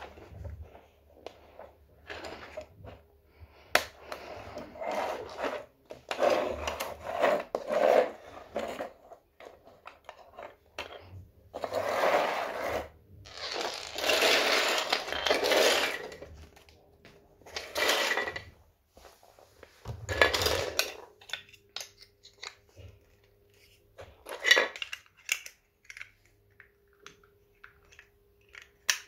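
Hard plastic Playmobil toy pieces being handled, clicked together and scraped across a laminate floor, in irregular bursts of clicks and rustling with short pauses between them.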